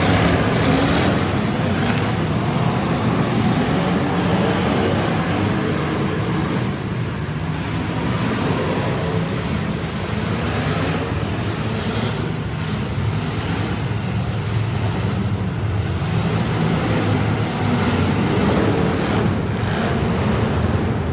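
Several demolition derby cars' engines running and revving together, with a few sharp knocks of cars hitting.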